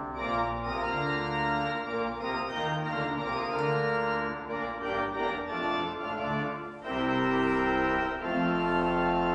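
Church pipe organ playing its solo turn in an organ-and-brass dialogue: full, sustained chords that change every second or so.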